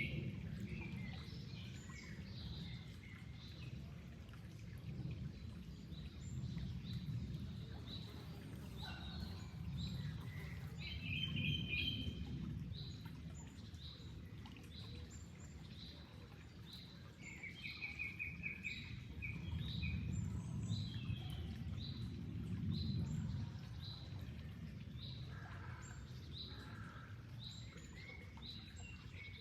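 Birds singing over the low rush of flowing water. One bird repeats a short, high chirp about once a second, and brief trills come in twice. The water sound swells and fades.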